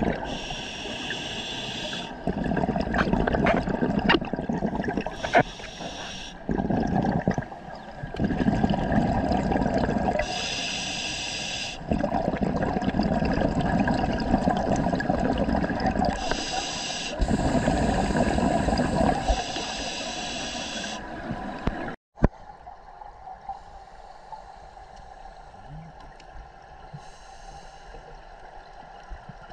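Scuba diver breathing through a regulator underwater: a short hissing inhale every few seconds, alternating with longer spells of bubbling exhalation. About 22 seconds in, the sound cuts off abruptly and gives way to a much quieter, steady underwater hiss.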